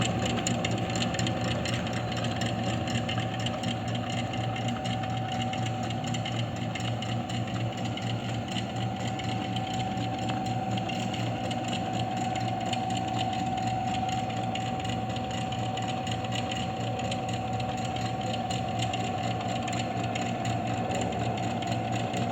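Pillar drill press running steadily, its electric motor and spindle giving an even hum with a steady whine over it.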